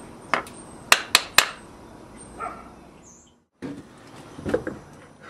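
A light hammer tapping a wooden molding plane to set the depth of its iron: four sharp taps in the first second and a half, then a softer knock. The sound drops out briefly a little past the middle, and only faint handling noise follows.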